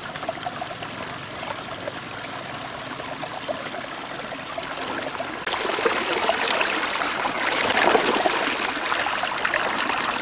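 Shallow rocky stream flowing and babbling over stones close to the microphone. About halfway through it becomes louder and brighter, as the current rushes through and around a woven bamboo basket trap set in the water.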